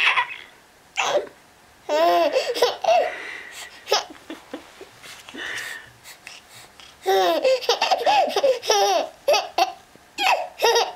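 Infant laughing and babbling in several high-pitched bursts, with short pauses between.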